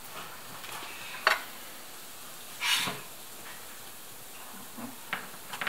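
Semolina pancakes frying in oil in a pan, a steady sizzle. A sharp clink comes about a second in and a brief louder rush about three seconds in, and a few clicks of the fork against the pan come near the end as the pancakes are turned.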